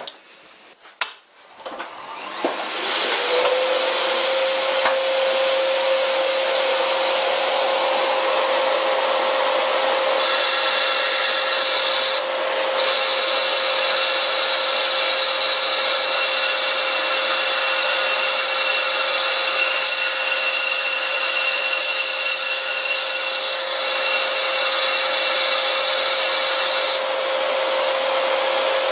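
Household vacuum cleaner switching on and spinning up with a rising whine, then running steadily with a loud hiss while its nozzle draws cast iron dust away from the lathe tool. From about ten seconds in until shortly before the end, a brighter hiss joins as the insert cuts across the spinning cast iron faceplate.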